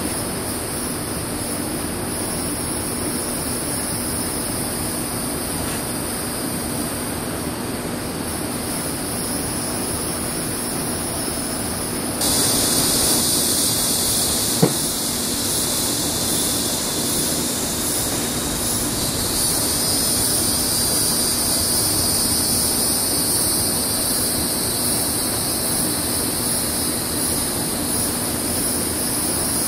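Steady outdoor ambience dominated by a high insect chorus, with a louder high insect drone setting in abruptly about twelve seconds in, over a low steady hum. A single light click sounds about fifteen seconds in.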